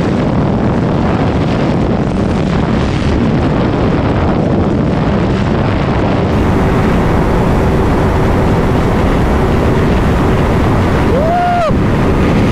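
Sport motorcycle running hard at highway speed, its engine noise mixed with heavy wind rush on the microphone. About 11 seconds in, a short tone rises and falls once.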